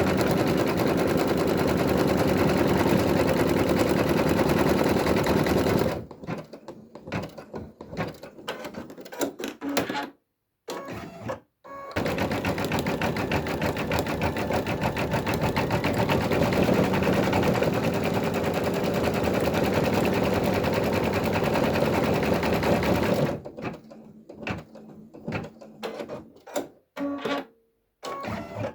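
Brother Innovis V3 embroidery machine stitching a design: a fast, even run of needle strokes for about six seconds, then stop-start clicking with brief silences, then another long steady run of stitching before it drops back to sparse clicks near the end.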